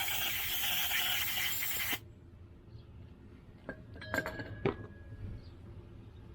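Aerosol carburetor cleaner spraying in a steady hiss that cuts off about two seconds in, followed by a few light metallic clinks.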